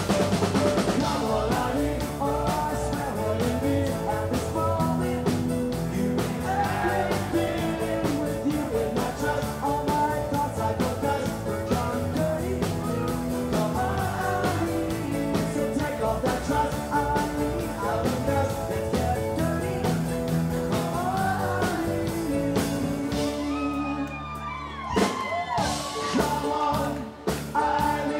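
Live rock cover band playing with a lead singer: electric guitars, bass and drums under the vocal. About 23 seconds in, the bass and the steady beat drop out for a short, sparser break.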